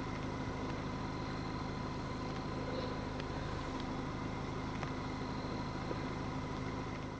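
Parked car's engine idling: a steady low hum with a faint constant whine over it.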